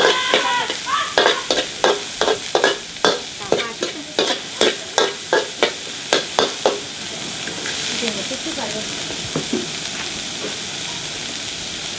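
Metal ladle scraping and tossing diced carrots and green beans in a hot steel wok, about three scrapes a second over the sizzle of the frying vegetables. About seven seconds in the scraping stops and a steady sizzle carries on.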